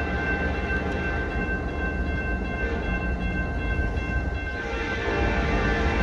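Grade-crossing warning bell ringing steadily over a low rumble. About four and a half seconds in, an approaching Union Pacific locomotive's horn starts to blow.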